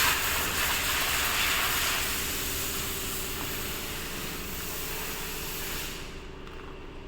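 Rattan rounding machine running, its cutter shaving a cane pole with a loud hiss that fades and stops about six seconds in as the cut finishes, while the machine's motor hum carries on.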